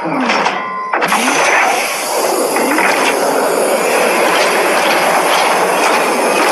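Mecha monster sound effect: a sudden mechanical start, then about a second in a loud, sustained rushing blast with a few low sweeping tones underneath.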